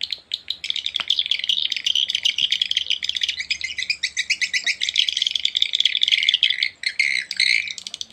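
Recorded swiftlet calls played as a swiftlet-house lure through horn tweeters: dense, rapid, high twittering chirps with no break. A single sharp click about a second in.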